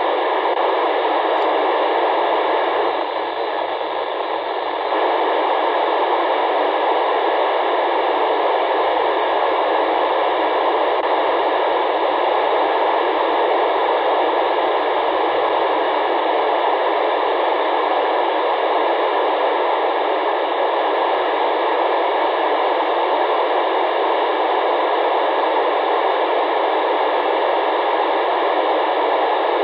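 Steady FM receiver static from a radio tuned to the SO-50 amateur satellite's downlink, with no station coming through. The hiss dips slightly for a couple of seconds about three seconds in.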